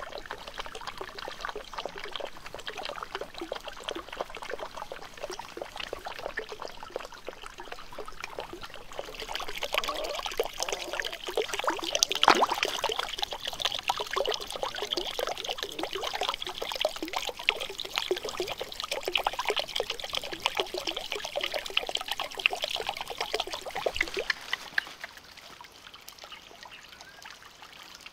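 Water pouring and trickling from an inlet pipe into a small pond, splashing on the surface. It grows louder about a third of the way in and falls back near the end.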